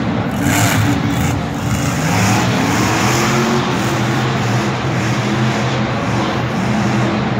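Monster truck engine revving hard, its pitch rising and falling as the truck turns and spins in the dirt.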